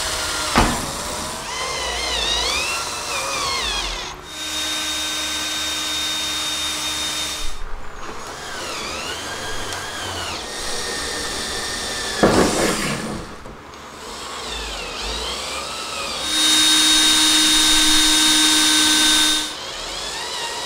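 Ryobi cordless drill drilling 1/8-inch holes into the truck's sheet-metal roof and driving self-tapping screws, in several runs. Two longer runs hold a steady whine, the second the loudest, near the end. Between them the pitch rises and falls as the trigger is eased on and off.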